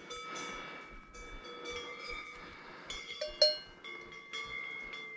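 Cowbells on walking cows clanking irregularly, each strike leaving overlapping ringing tones. One louder clang comes about three and a half seconds in.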